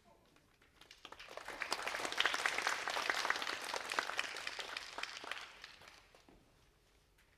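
Audience applauding. It builds up about a second in, then dies away over the last couple of seconds.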